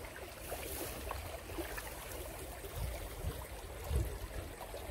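Shallow, rocky river water trickling and flowing steadily, with a few soft low bumps in the second half.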